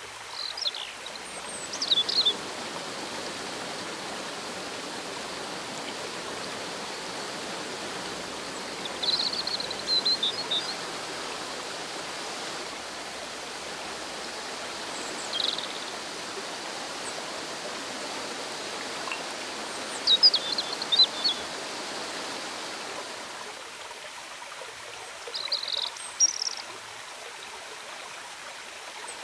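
River water rushing over rocks, a steady hiss throughout. A bird gives short chirping phrases about five times above it, and these are the loudest sounds.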